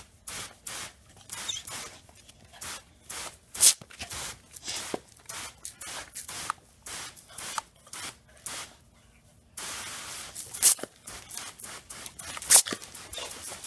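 Water from a garden hose spraying and splattering on the ground in short, uneven bursts, a few each second, turning to a steadier hiss with louder splashes about ten seconds in.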